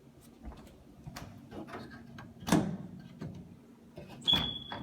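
Handling sounds indoors: scattered light clicks and two sharp knocks, one about two and a half seconds in and one near the end. The second knock is followed by a brief steady high tone, like a ring or squeak.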